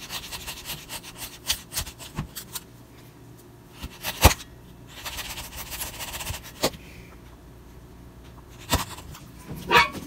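Carving knife chopping and slicing into a wooden block: scraping cuts and sharp cracks as chips split away, the loudest crack about four seconds in.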